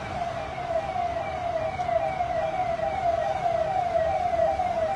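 Emergency vehicle siren sounding a fast repeating wail, each note sliding down in pitch, a little over two a second.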